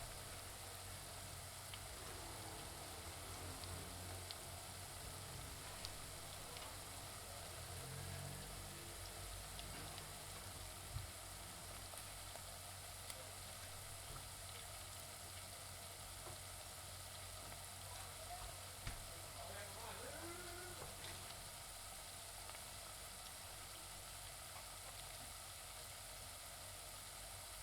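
Onions frying in a pan: a steady sizzle with a few sharp pops, the loudest about eleven seconds in.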